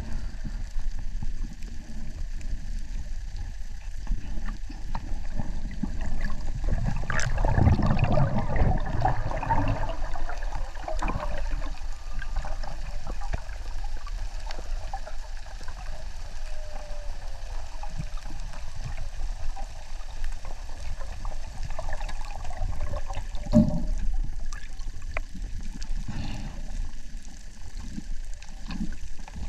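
Water sloshing and gurgling heard through an underwater camera, with a louder rush of moving water about seven to ten seconds in and a short knock near twenty-four seconds.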